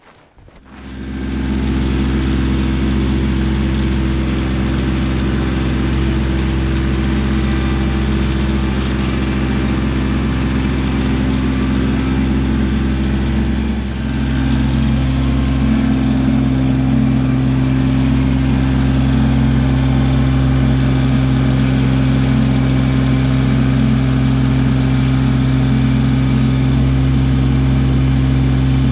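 Compact tractor diesel engine running steadily at working speed. It gets a little louder after a short dip about halfway through.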